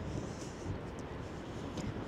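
Strong wind buffeting the microphone: a low, gusty rumble of wind noise.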